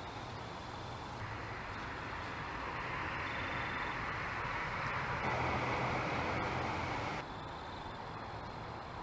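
Steady outdoor background hiss and low hum. A louder stretch of hiss begins about a second in and cuts off abruptly about seven seconds in.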